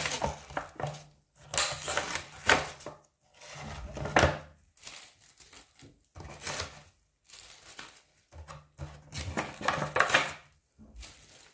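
Cardboard packaging being torn apart by hand and peeled off a plastic display case, in irregular bursts of tearing and rustling with short pauses.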